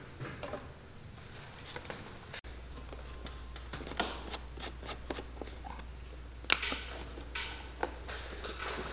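Small plastic bottles of leather dye handled on a wooden shelf, then a black plastic screw cap twisted off a dye bottle and put down on a wooden table: a run of light clicks, scrapes and taps, the sharpest about six and a half seconds in.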